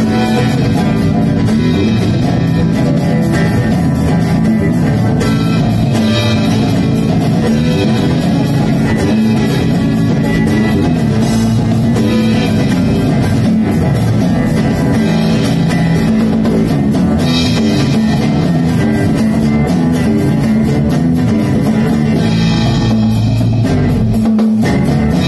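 Live instrumental band music: a nylon-string acoustic guitar, an electric bass guitar, and a cajón with a cymbal play together at a steady beat.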